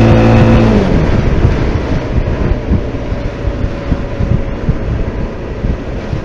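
SYM Maxsym 400 scooter engine pulling under throttle, its pitch rising and then dropping away about a second in. After that come rushing wind on the microphone and road noise while riding.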